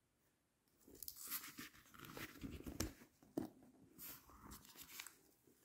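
Faint handling noise of a small screw-on camcorder add-on lens: scattered light clicks and short rustles, sparse from about a second in until shortly before the end.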